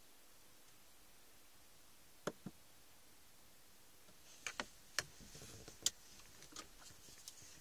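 Small sharp clicks and knocks inside a quiet car: two quick clicks a little over two seconds in, then a run of clicks with faint rustling between about four and a half and six seconds, and a few softer ticks after.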